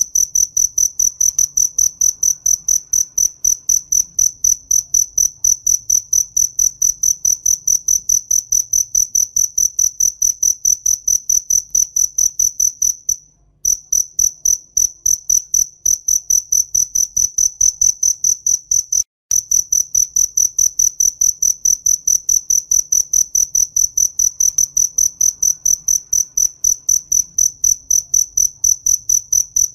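Cricket chirping loudly in a fast, even rhythm of about four chirps a second, one high-pitched tone, with two brief breaks about 13 and 19 seconds in.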